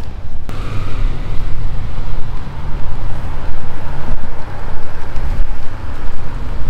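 Wind buffeting the camera's microphone, a loud, uneven low rumble that rises and falls in gusts.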